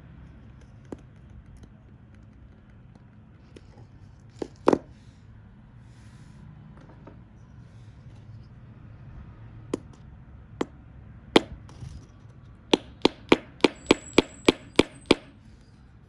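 Sharp clicks and taps of a steel fishing hook and pliers against a small wooden block, scattered at first, then a quick even run of about three taps a second near the end.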